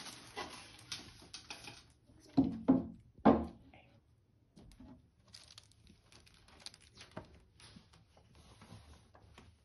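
A hardcover picture book being handled on a table and its pages turned: light rustles, taps and page flips, with three louder brief sounds about two and a half to three and a half seconds in.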